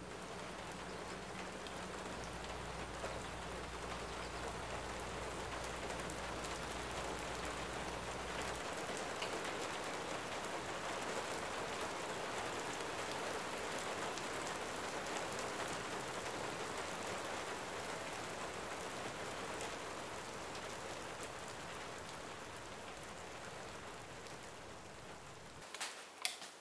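Steady rain falling, an even hiss that swells gently and eases off toward the end. Near the end, a few light, sharp clicks are louder than the rain.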